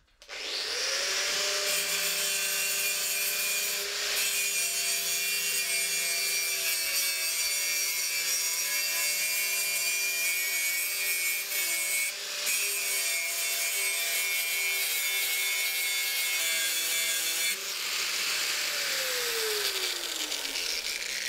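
Electric angle grinder grinding metal. The motor whine spins up at the start and holds steady under a loud, high grinding hiss that breaks off briefly twice. Near the end the grinder is switched off and its whine falls away as the disc spins down.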